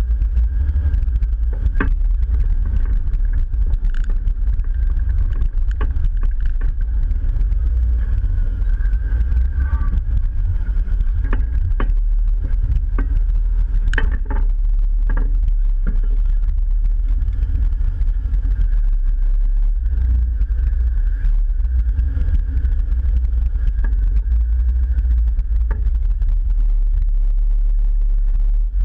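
Jeep engine running steadily at low speed as the Jeep crawls over a rocky trail: a continuous low rumble with scattered sharp knocks and clicks, the loudest about halfway through.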